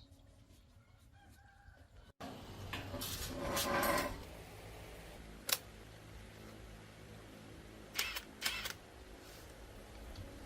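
A rooster crows once, about three seconds in, the loudest sound here. A few sharp clicks follow, one around the middle and two close together near the end.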